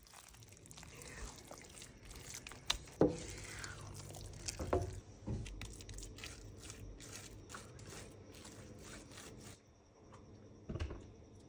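A spatula stirring and pressing a wet, sticky glutinous rice mixture, making squelching sounds and a run of small clicks and scrapes against the pan and bowl, with a few louder knocks.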